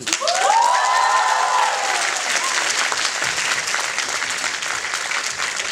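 Audience and cast applauding, the clapping starting at once and running steadily, with a few whooping cheers over it in the first two seconds.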